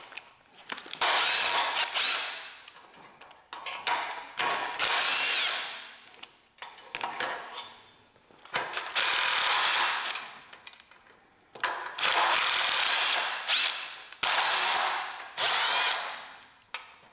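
Cordless impact driver with a socket running rusty nuts and bolts off the engine mounts of a steel truck frame, in about six short bursts with pauses between them.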